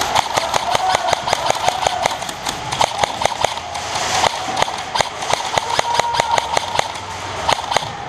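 Airsoft guns firing: a running, irregular string of sharp snaps and BB hits, several a second.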